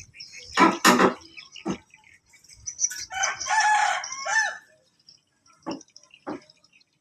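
A rooster crowing once, a call of about a second and a half starting about three seconds in, after two loud short knocks near the start, with small birds chirping faintly.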